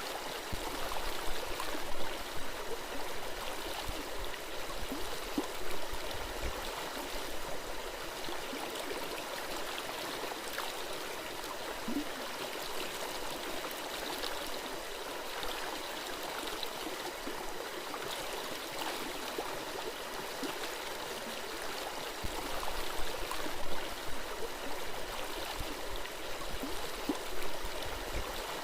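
Small forest stream flowing and gurgling steadily, a constant rush of water, with a few brief low thumps near the start and in the last few seconds.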